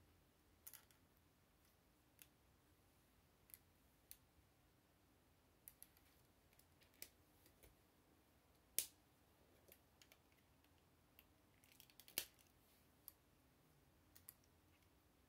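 Faint, scattered clicks of plastic Lego bricks being handled, about a dozen sharp ticks, with the loudest about nine and twelve seconds in.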